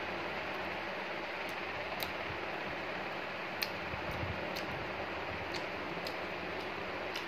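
Light, scattered clicks and taps of fingers picking at chicken pieces in a small steel bowl of curry, over a steady background hiss.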